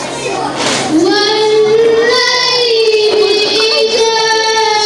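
A child's voice singing, holding one long, slightly wavering note from about a second in.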